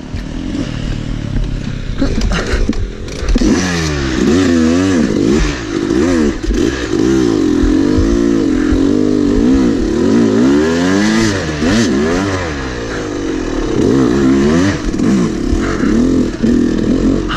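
2011 Yamaha YZ250 two-stroke dirt bike engine, heard close up from onboard, revving up and down over and over, roughly once a second, as the bike is ridden through muddy ruts.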